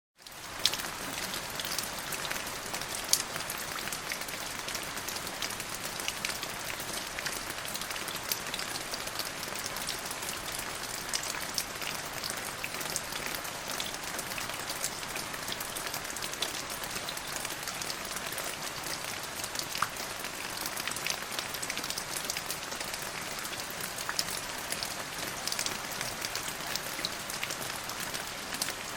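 Steady rain falling, an even hiss dotted with many small drop ticks, fading in at the very start.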